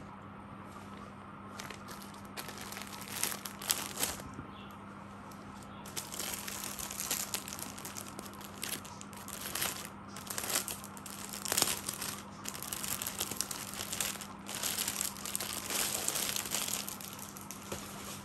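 Clear plastic clothing packaging crinkling in irregular bursts as the packed suits are picked up and moved. The crinkling grows busier and louder about halfway through.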